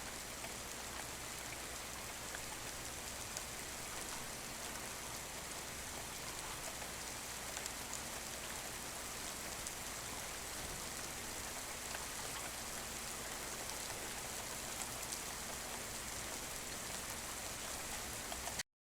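Steady rain falling, an even hiss with scattered drop ticks, cutting off suddenly near the end.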